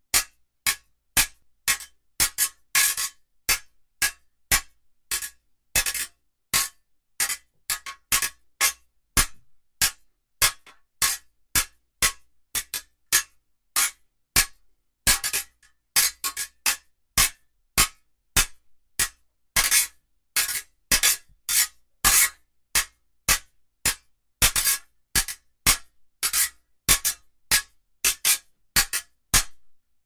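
Fencing blades clashing in a running exchange: short, sharp metallic clinks, irregular at about two or three a second, some coming as quick double hits.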